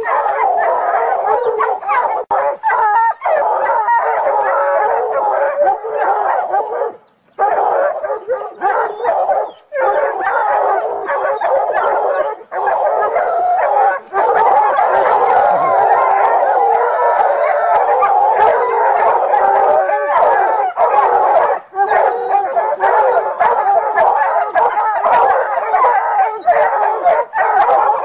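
A pack of dogs barking and howling without pause, many voices overlapping into one dense din, with two short breaks about seven and nine and a half seconds in. The dogs are baying at a leopard they have treed.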